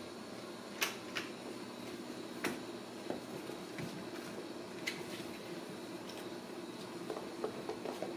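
Kittens playing on a tile floor and a cardboard scratcher: a handful of sharp, light clicks and taps, over a steady low room hum.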